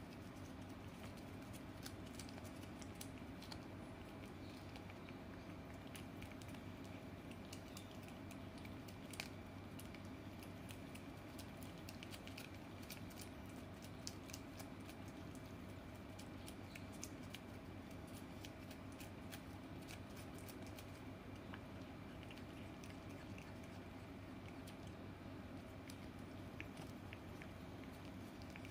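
Scottish Fold cat licking paste from a squeeze-tube treat: faint, quick, wet licking clicks, thickest through the middle stretch, over a steady low room hum.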